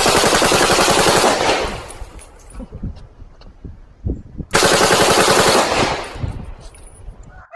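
AK-pattern rifle firing two long bursts of rapid automatic fire, one at the start and one about four and a half seconds in, each trailing off into echoes.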